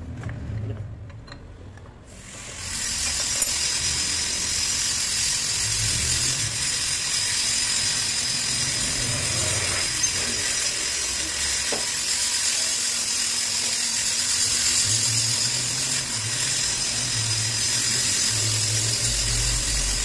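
A milling machine starts about two seconds in, then runs steadily with a high hiss as a spiral end mill in a drill chuck cuts a slot in an aluminium motorcycle cylinder head. A few light clicks come before it starts.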